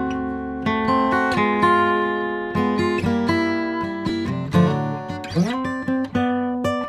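Background music: an acoustic guitar playing plucked notes and strums, with a sliding note about five seconds in.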